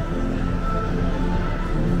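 Music playing, with long held notes that change pitch every half second or so.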